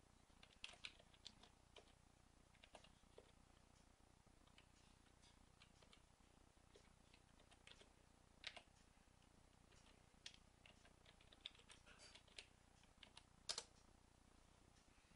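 Faint typing on a computer keyboard: scattered, irregular key clicks. A louder key press comes near the end, as the command is entered.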